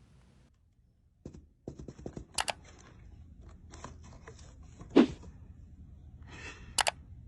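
Scattered sharp taps and knocks, the loudest about five seconds in, with brief rustling between them, in a small room.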